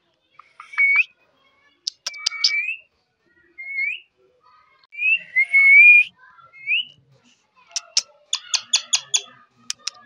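Pet Indian ringneck parakeet whistling: a string of short rising whistles, then near the end a quick run of sharp clicking calls.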